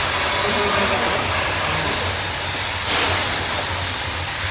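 Steady blowing hiss with a low hum from a hot-air welding machine joining PVC tunnel waterproofing membrane, with a brief louder hiss about three seconds in.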